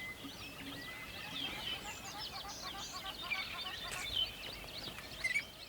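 Several songbirds singing at once, a dense overlap of quick chirps and short whistled notes, over the steady low rush of a river.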